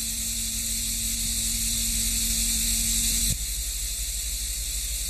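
Steady hiss and low hum from an old analogue television recording, with a low held tone beneath. The tone and much of the hiss cut off suddenly a little over three seconds in.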